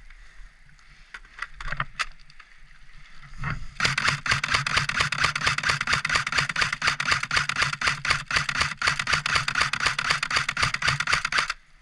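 Airsoft electric gun firing on full auto: a few single clicks, then from about four seconds in a long, rapid, even rattle of shots lasting about eight seconds that cuts off abruptly.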